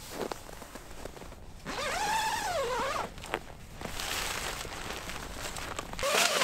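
Footsteps, then a tent zipper pulled open in a sweep and nylon rustling as someone climbs into the tent. A low wind rumble on the microphone cuts out near the end, once inside the tent.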